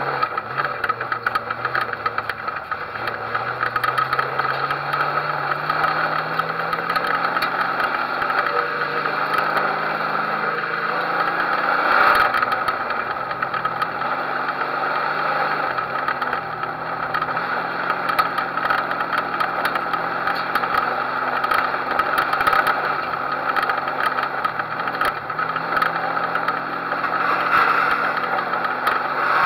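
Figure-8 race car's engine running at low revs, heard from inside the car, its pitch rising and dropping in small steps, over a steady rush of wind and road noise. A sharp knock about twelve seconds in.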